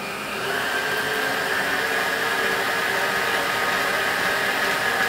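Electric stand mixer running steadily with a whirring motor hum, mixing cookie dough after a splash of milk until the dough starts to come together.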